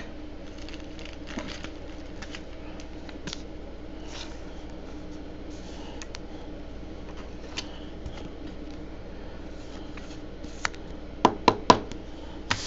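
Trading cards being handled by hand: faint rustling and small ticks, then a quick run of about five sharp clicks near the end, over a steady low hum.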